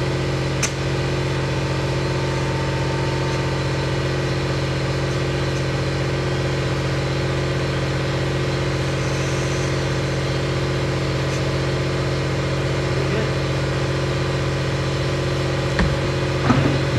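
Air compressor motor running with a steady, even hum while a tire is being inflated through an air hose. A few knocks near the end.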